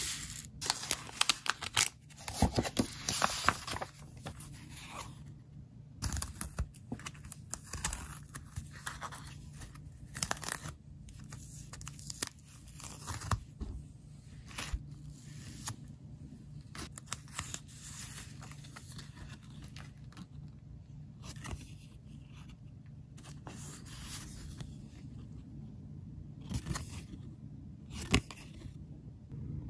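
Paper envelope being torn open in a quick run of loud rips, then plastic sleeves and photocards rustling and crinkling as they are handled, with scattered light clicks and one sharp click near the end.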